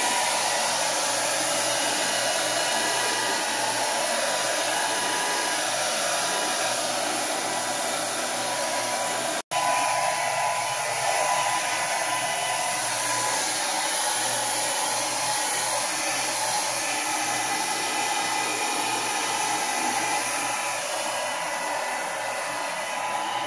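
Handheld hair dryer blowing steadily with a faint motor whine, drying freshly applied photo emulsion on a silk-screen mesh. The sound breaks off for an instant about nine and a half seconds in, then carries on.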